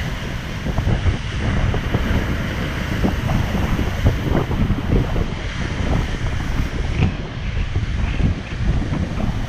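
Ocean surf churning against the rocky coast, with strong wind buffeting the microphone.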